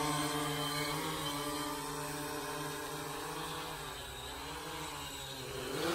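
Walkera Voyager 3 quadcopter's electric motors and propellers humming in flight, a stack of steady tones. The hum fades as the drone flies off, wavers in pitch about two-thirds of the way through, and grows louder again near the end as it comes back.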